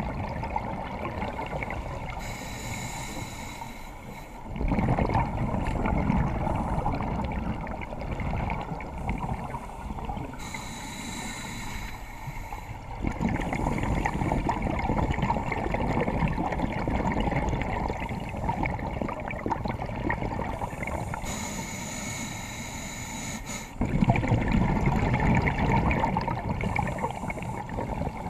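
Scuba diver breathing through a regulator underwater, three slow breaths. Each is a short hiss from the regulator on the inhale, then a long, low bubbling rumble of exhaled air.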